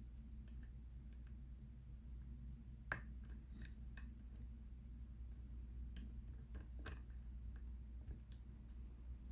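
Faint, scattered clicks and ticks of a hook pick working the spring-loaded pins of a pin-tumbler lock held under tension. The two sharpest clicks come about three and seven seconds in, over a low steady hum.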